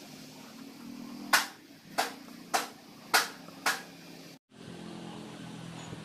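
Five sharp knocks, evenly spaced a little over half a second apart, over a faint low hum. The sound drops out for a moment near the end.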